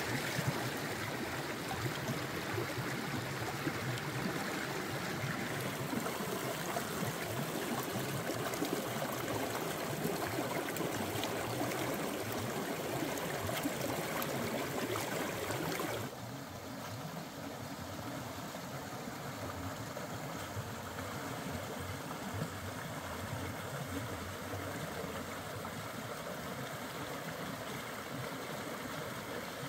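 Shallow rocky stream rushing and gurgling steadily, close to the water. About halfway through it cuts abruptly to a softer, more distant rush.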